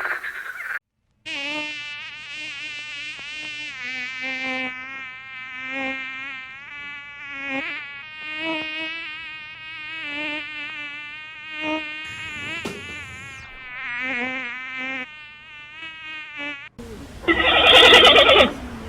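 A flying insect buzzing: a steady, droning wing-buzz whose pitch wavers slightly as it goes. Near the end a different, louder sound cuts in.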